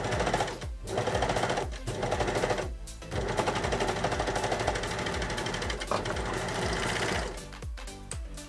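Overlocker (serger) stitching a knit cuff onto a sleeve: three short runs in the first few seconds, then one longer run of about four seconds that stops near the end. Background music with a steady beat plays underneath.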